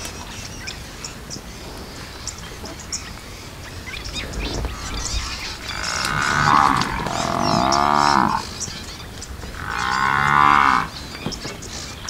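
Cape buffalo lowing: two long calls, the first starting about six seconds in and lasting about two seconds, the second shorter at about ten seconds in.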